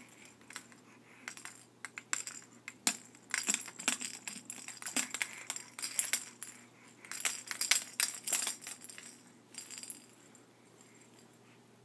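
A baby shaking a plastic bead rattle: quick clicking and clattering in several bursts with short pauses, dying down near the end.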